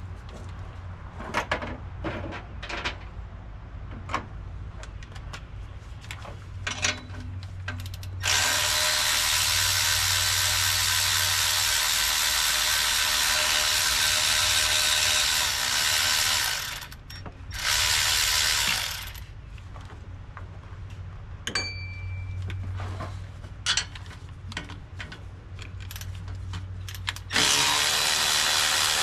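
Cordless power tool running in long steady stretches: about eight seconds from around eight seconds in, once more briefly, and again near the end, as it backs out the valve cover bolts on a Detroit 8V92 engine. Between the runs, scattered clicks and clinks of tools and metal parts.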